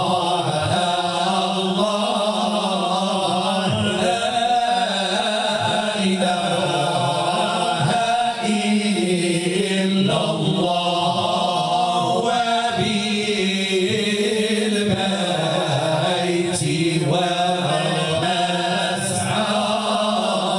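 A group of male madih singers chanting devotional praise in unison, sung into microphones with no instruments.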